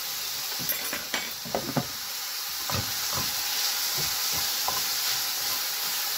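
Pork frying in a pan with a steady sizzle, and a utensil knocking against the cookware several times in the first two seconds and a few more times in the middle.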